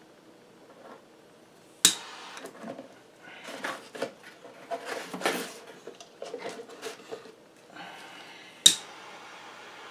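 Small handheld gas torch's igniter clicking twice, about two seconds in and near the end, the second time followed by the steady hiss of the lit flame. In between, rustling and light knocks of a plastic air box and filler rod being handled in a cardboard box.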